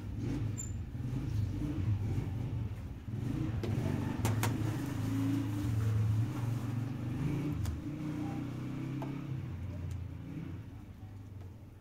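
An engine running with a steady low hum and a few sharp clicks about four seconds in, fading away over the last few seconds.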